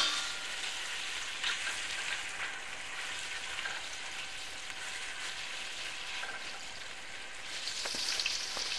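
Turkey pieces sizzling as they sear in hot olive oil and margarine in a stainless steel pot, the browning stage of a sauté. A sharp click comes right at the start, and the sizzle grows louder near the end.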